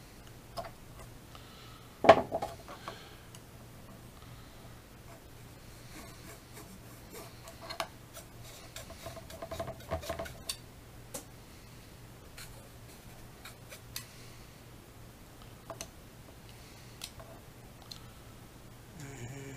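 Small hobby razor saw and knife cutting a plastic model kit part in short, scraping strokes with scattered small clicks, and one sharp click about two seconds in.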